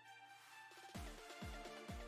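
Background music: held notes, then a deep electronic kick-drum beat comes in about a second in, at about two beats a second.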